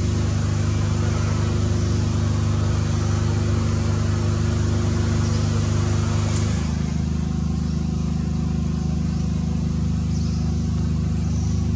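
A steady low engine hum, like a motor running at idle, whose pitch shifts slightly about halfway through.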